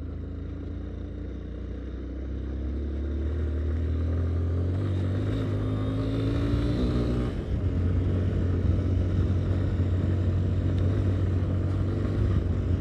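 Yamaha Ténéré 250's single-cylinder four-stroke engine pulling up a dirt hill, its pitch rising steadily for several seconds, then a gear change about seven seconds in, after which it runs louder.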